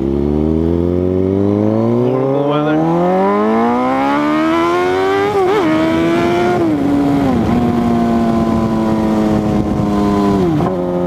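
2006 Suzuki GSX-R600's inline-four engine at full throttle in a power wheelie, the revs climbing steadily for about five seconds. Then come several quick upshifts, each a short drop in pitch, before it settles to a steady speed.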